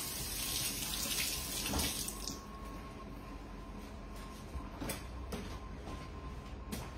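Kitchen sink faucet running while hands are washed, shut off about two seconds in; a few faint clicks follow.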